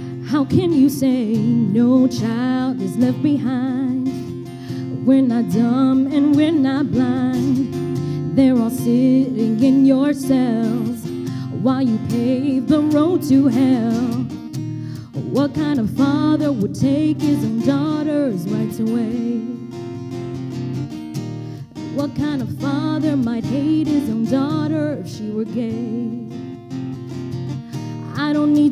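A woman singing with acoustic guitar accompaniment, a slow vocal-and-guitar song performed live on stage.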